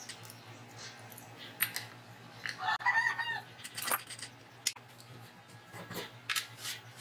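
A chicken calling once, a pitched call a bit under a second long near the middle. Around it come scattered clicks and knocks as the sanding drum is gripped and pulled off the spindle sander's shaft.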